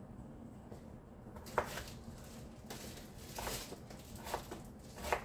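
Chef's knife cutting through sweet potato on a cutting board: about five separate short cuts, the sharpest about one and a half seconds in.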